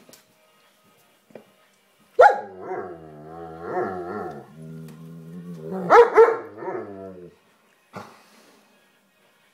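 A dog barks sharply twice, about 2 s and 6 s in, and each bark runs into a long, wavering, grumbling growl-howl with a low steady drone between them.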